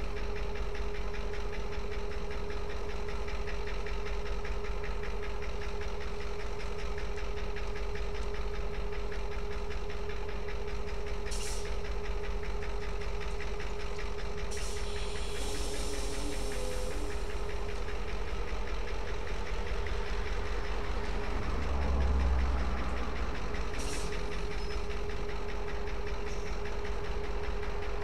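Two coupled diesel locomotives running at idle: a steady low engine rumble with a constant droning tone. Two brief hisses come about a third and six-sevenths of the way through, and the low rumble swells briefly near the three-quarter mark.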